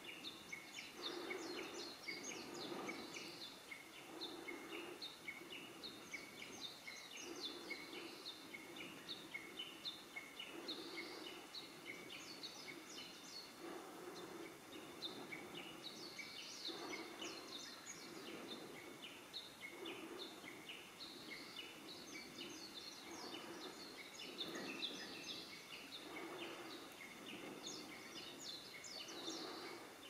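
Songbirds singing in the background, faint: rapid runs of high chirps in phrases that repeat every few seconds. Under them a low sound comes back about every one to two seconds.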